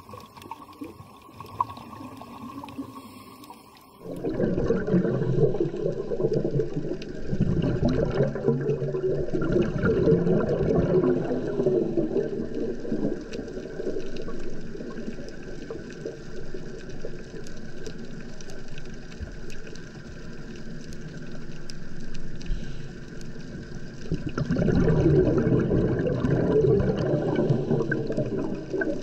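Underwater bubbling and rushing from a scuba diver's exhaled bubbles, starting about four seconds in. It comes in two long loud spells with a softer stretch between them.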